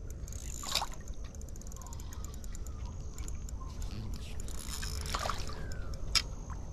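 Steady rush of flood water through a drain, with light sloshing and a splash about five seconds in, and a couple of sharp clicks.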